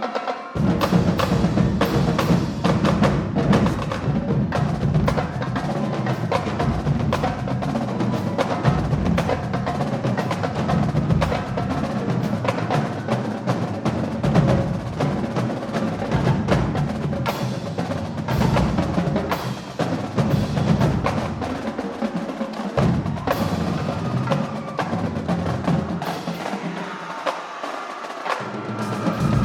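A marching drumline playing a fast, dense cadence of rapid drum strokes. The low drums drop out briefly about two-thirds of the way in and again near the end, leaving the higher drums.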